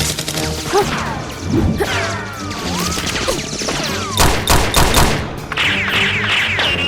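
Gunfire sound effects, scattered shots with a quick burst of about six near the middle, over background music.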